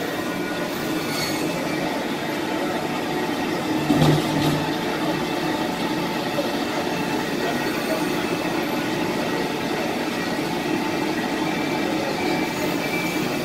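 Band saw for cutting frozen tuna running steadily with a faint whine, and a heavy knock about four seconds in as a frozen tuna block is set against the steel table.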